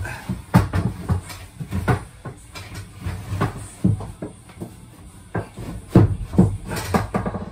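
Wooden boards knocking and scraping against a timber bed frame as they are handled and fitted into place, a string of irregular knocks with the loudest about six seconds in.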